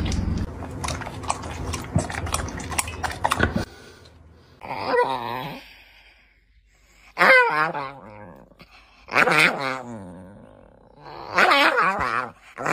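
A large black dog vocalizing in its sleep: four separate wavering, growl-like calls, each under a second long and about two seconds apart. Before the calls there is a brief stretch of clicking and clatter.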